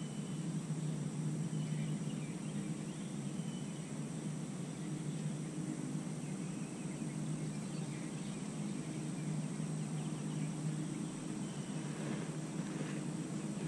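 Steady low hum with faint, steady high-pitched tones above it, unchanging throughout.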